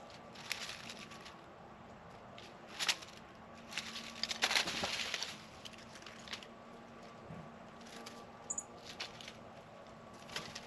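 Light taps, scrapes and rustles of small animals feeding at a plate of peanuts, with a louder rustling flurry about halfway through and a brief high chirp near the end.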